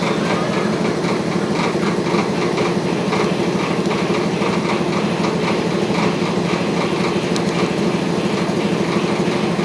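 Welding arc crackling and buzzing steadily while a custom motorcycle's rear fender is welded.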